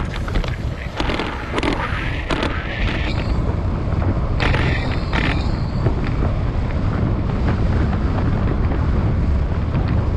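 Wind buffeting the microphone of a camera riding along on a moving bicycle, a steady low rumble, with a few sharp clicks and a short rising whine in the first few seconds.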